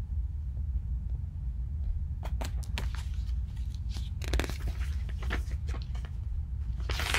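Paper pages of a picture book being handled and turned: clusters of short rustles and crinkles beginning about two seconds in, over a steady low hum.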